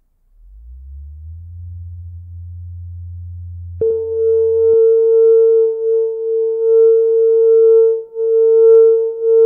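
Experimental electronic drone music built from pure tones. A low hum climbs in small steps and then holds steady. About four seconds in, a loud steady mid-pitched tone with faint higher overtones cuts in sharply and swells and dips, and the low hum stops a second later.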